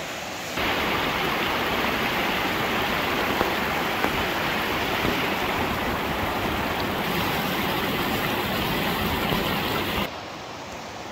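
Mountain stream rushing over rocks: a steady noise that starts abruptly about half a second in and cuts off about a second before the end.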